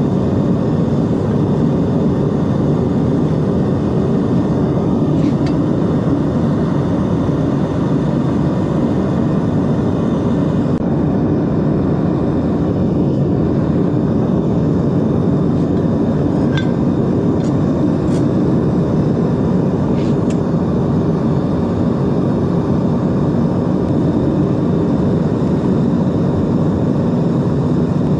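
Propane burner of a small metal-melting furnace running steadily at full flame, heating a crucible of scrap copper to melt it down. A few faint clinks sound over it.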